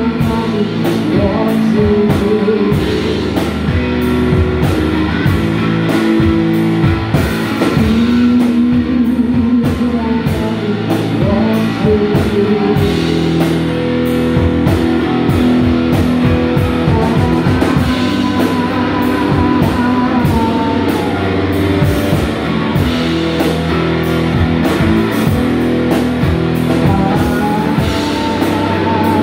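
Live blues-rock band: electric guitar and drum kit playing a song, with a man singing at times.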